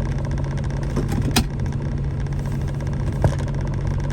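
Car engine idling with a steady low hum, and a few sharp clicks in the cabin: one about a second in, one shortly after, and one just past three seconds.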